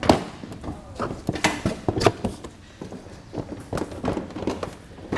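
A 2021 Chevrolet Spark's plastic front bumper fascia being pulled away by hand, with a string of irregular clicks and snaps as its retaining clips release.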